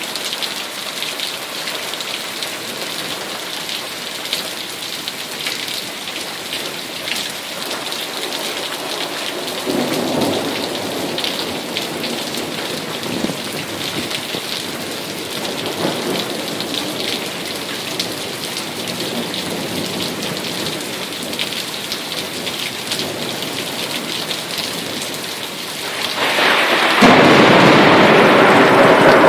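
Thunderstorm: steady rain pattering, with low thunder rumbling twice. Near the end the sound jumps suddenly to a much louder, fuller rush of heavy rain that keeps going.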